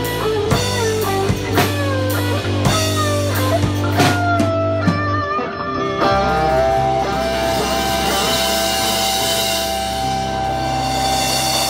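Live rock instrumental on electric guitar and a clear acrylic Pearl drum kit: a lead guitar line with string bends over drum hits, then about six seconds in the band lands on a long held chord with cymbals washing over it, closing the tune.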